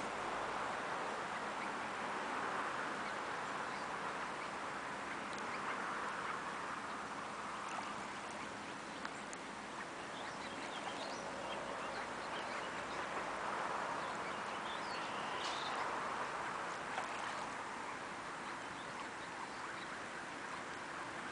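Mallards dabbling and preening in shallow water, with occasional soft quacks and small splashes over a steady wash of lapping water.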